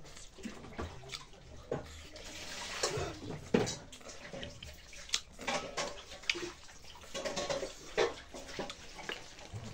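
Wet eating sounds: lip smacks and chewing of rice and chicken curry eaten by hand, with fingers squelching through the food on a steel plate.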